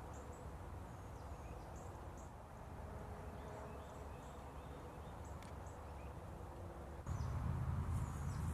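Outdoor ambience with faint, short, high bird chirps repeating every second or so over a steady low rumble; the rumble grows louder about seven seconds in.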